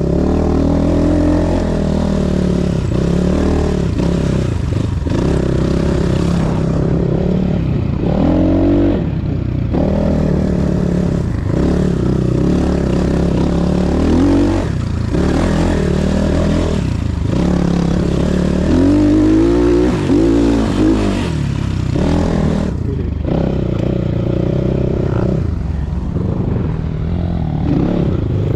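Motor vehicle engine running, its pitch rising and falling as it revs up and eases off several times.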